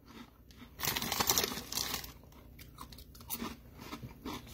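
Crunching and chewing Doritos 3D Crunch chili cheese nacho chips in the mouth. A loud crunchy bite starts about a second in and lasts about a second, followed by quieter chewing crackles.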